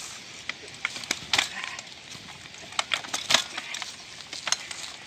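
A small BMX-style bicycle clicking and rattling as it is ridden slowly over a rough road: irregular sharp clicks, the loudest about three seconds in, over a steady hiss.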